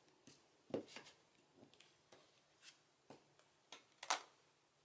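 A scattering of light taps and clicks as the clear plastic imaging sheet and the Stamp-a-ma-jig stamp positioner are handled and set down on cardstock, the sharpest click about four seconds in.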